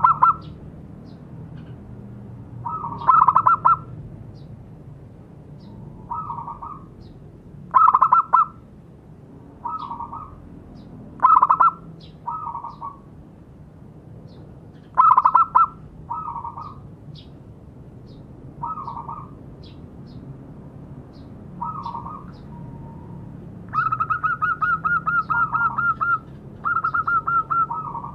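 Zebra dove cooing: short bursts of quick, rippling coo notes every one to three seconds, some louder than others. Near the end comes a longer run of rapid notes.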